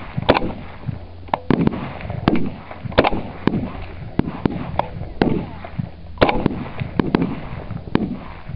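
Rifle shots from several L98A2 cadet GP rifles (5.56 mm) on a firing range: many sharp cracks at irregular spacing, about two a second, some coming in quick pairs.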